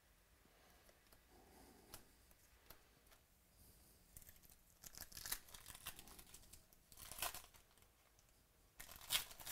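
Foil trading-card pack wrapper being torn open and crinkled in the hands, in a few short crackling bursts over the second half, after a quiet start.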